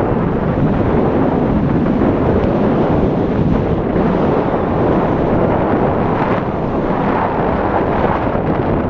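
Steady, heavy rush of wind buffeting a camera microphone during a tandem skydive under an open parachute canopy.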